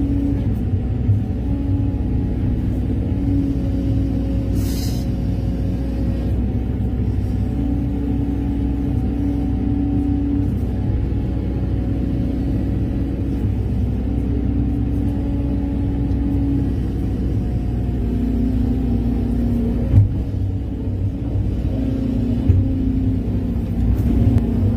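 Excavator's diesel engine running under steady load, its pitch shifting every few seconds as the hydraulics work, with a short hiss about five seconds in and a single sharp knock about twenty seconds in.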